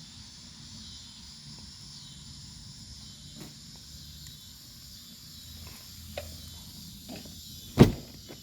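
Steady high-pitched insect chorus, like crickets, over a low hum, with a few faint clicks and one loud knock near the end.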